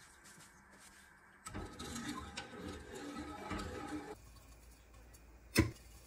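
A wooden spoon stirring and scraping milk in a metal saucepan, with one sharp knock of spoon on pot near the end.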